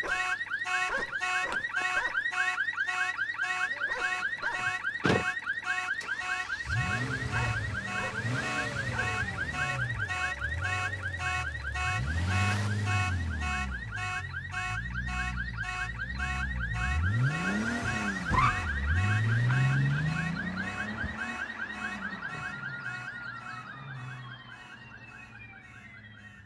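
Car alarm going off: a fast, evenly repeating electronic tone pattern, joined from about seven seconds in by lower rising-and-falling siren sweeps, fading away near the end. The alarm was set off by the car's window being smashed.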